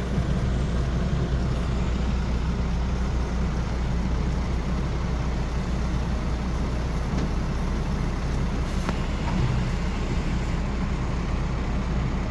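Heavy diesel engine running steadily: an even, low rumble.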